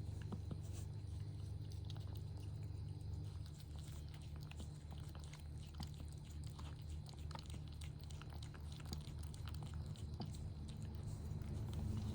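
Cat chewing and licking: many small scattered clicks over a low, steady pulsing hum.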